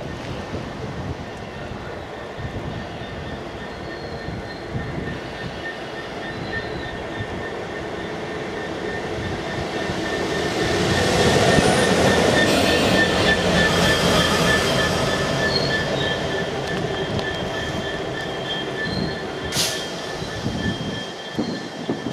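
GBRf Class 66 diesel-electric locomotive running light with no wagons as it approaches and passes close by. Its two-stroke V12 and wheel noise build to a peak about eleven to fourteen seconds in, then fade as it moves away, with a steady high whine underneath. Two sharp clicks come near the end.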